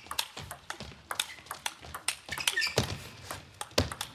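Table tennis rally: the celluloid ball clicking sharply off the bats and the table, back and forth in quick succession.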